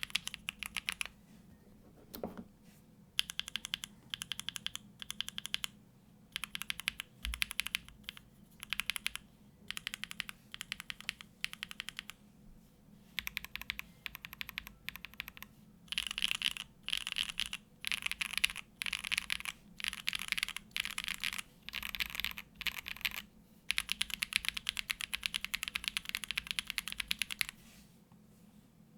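Typing on a mechanical keyboard with hand-lubed Kailh BCP switches on an aluminium plate, with case foam, under GMK Grand Prix keycaps: fast runs of keystrokes in bursts broken by short pauses, with a longer run near the end.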